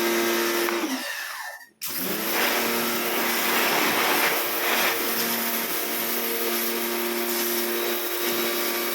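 Pressure washer running with a steady motor hum over the hiss of the spray. About a second in the motor winds down and cuts out almost completely, then starts again with a rising hum and runs on steadily.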